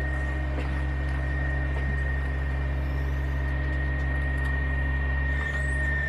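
Compact excavator's diesel engine running steadily, a low hum with a thin constant high whine over it.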